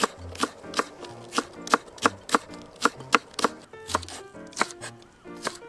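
Kitchen knife cutting a Japanese long onion (negi) into fine shiraga-negi shreds on a wooden cutting board: a steady run of sharp knocks, about three a second.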